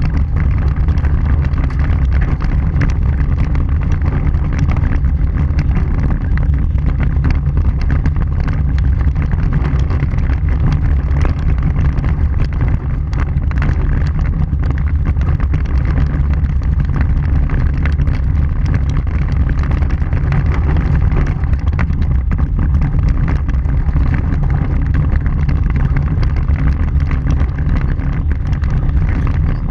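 Vehicle driving on a dirt and gravel road, heard from a front-bumper-mounted camera: a loud, steady low rumble of tyre and road noise with wind on the microphone, dotted with many small ticks.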